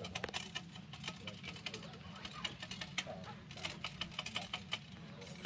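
Ramrod working a patched ball down the barrel of a muzzle-loading rifle: many light, irregular clicks and taps, with a faint voice in the background.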